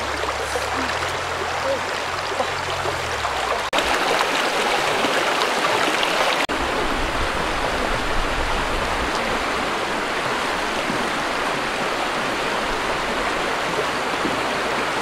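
Shallow river rushing over rocky rapids: a steady wash of flowing water that breaks off briefly twice in the first seven seconds.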